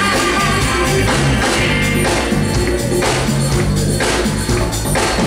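Live band playing a song on drum kit and electric guitars, with a steady beat and a moving bass line.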